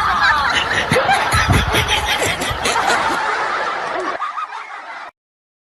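Several people laughing over a busy jumble of noise, cutting off suddenly about five seconds in.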